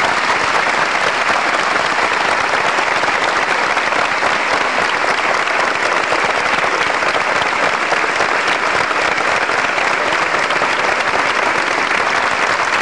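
Large crowd applauding, a dense, even clatter of many hands clapping that holds steady throughout.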